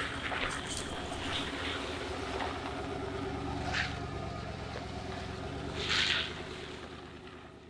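An engine running steadily, with a few brief high-pitched sounds over it, fading out near the end.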